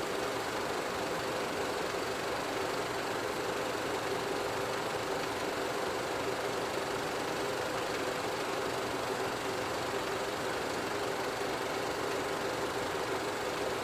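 Steady mechanical whir of a film projector running, with a constant hum and hiss that does not change.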